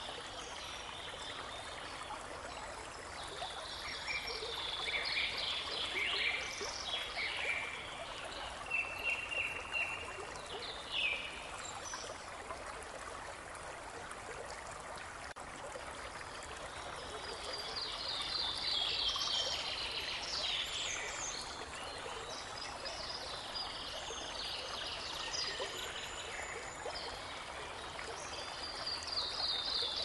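A babbling brook running steadily, with songbirds singing over it in quick chirping phrases, busiest from about four seconds in and again past the middle.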